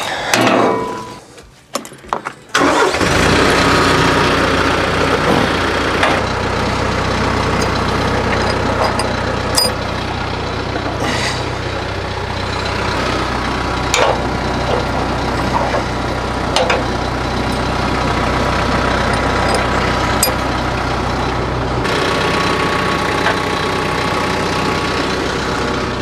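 Compact diesel tractor engine starting a few seconds in and then idling steadily, with sharp metal clanks now and then from chains and pins on the loader's fork attachment.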